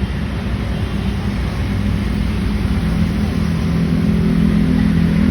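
A steady low engine hum running evenly throughout.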